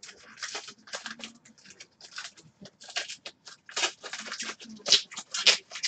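Trading card pack being opened by hand: the wrapper crinkles and tears in a quick, irregular run of short rustles, with the cards inside sliding against each other.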